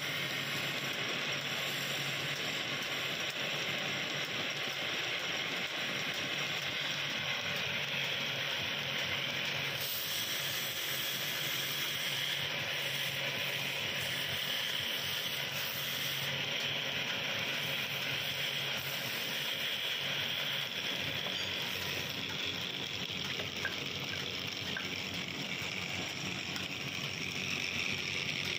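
Wood lathe running while a hand-held turning tool cuts a spinning wooden stool leg: a steady hiss and scrape of the cut with the lathe's low hum underneath.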